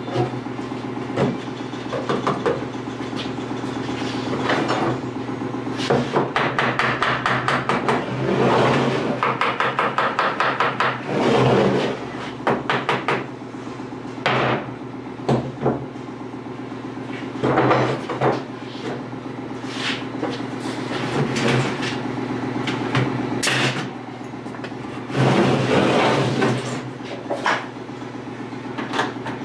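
Hammer blows on a wooden 2x4 frame, some single and some in quick runs, over a steady mechanical hum.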